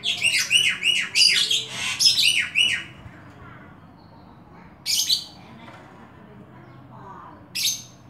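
Oriental magpie-robin singing: a fast, loud run of repeated down-slurred whistled notes for about three seconds, then two short bursts of song a few seconds apart.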